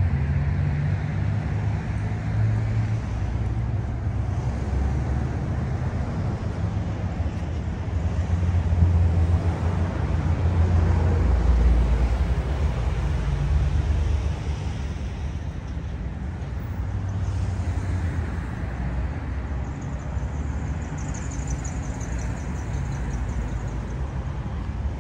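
Passing road traffic: a low vehicle rumble that swells about ten seconds in and eases off after about fourteen seconds, with a brief high chirping near the end.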